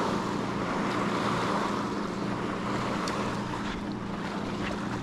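Motorboat underway: the engine's steady drone under wind on the microphone and water rushing past the hull.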